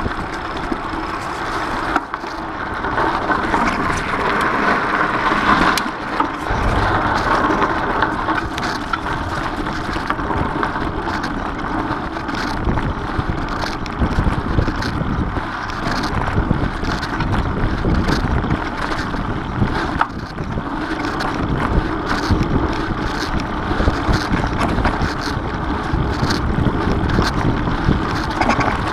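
Mountain bike riding a dirt-and-grass singletrack trail: tyres rolling over dry leaves and grass, with frequent small clicks and rattles from the bike, and wind buffeting the microphone.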